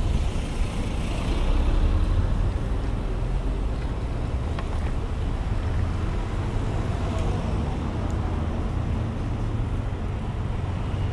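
Street traffic noise: a steady low rumble, with a city bus close by near the start.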